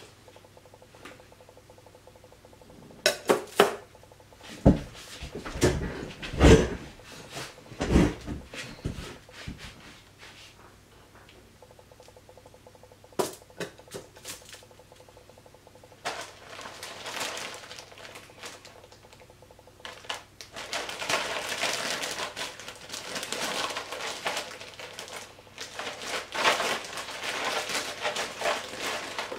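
Handling noise: a cluster of sharp knocks and heavier thumps, then a long stretch of dense crackling that starts about sixteen seconds in and grows stronger about twenty seconds in.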